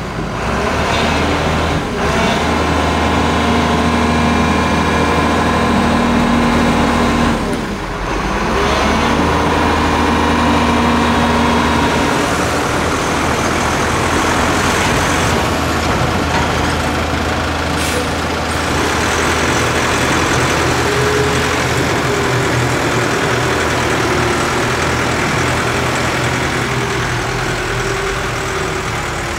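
Heavy diesel engines running steadily: first the Hyundai Robex 1300W wheeled excavator's, then a Truong Giang dump truck's as it drives through muddy puddles. The sound dips and changes briefly about eight seconds in.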